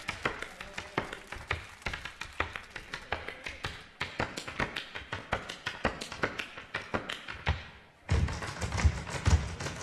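Background music with a sharp tapping beat, about four taps a second. It fades briefly about two seconds before the end and comes back suddenly, fuller and with more bass.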